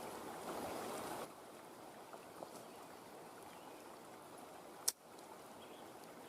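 Faint, steady rush of creek water, dropping a little just over a second in, with a single sharp click near the end.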